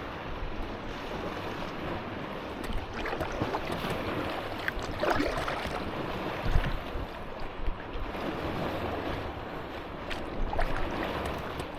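Lake water splashing and slapping against an inflatable kayak as it rides boat-wake waves, with gusts of wind on the microphone. A few louder splashes stand out, the clearest about five and a half seconds in and again near the end.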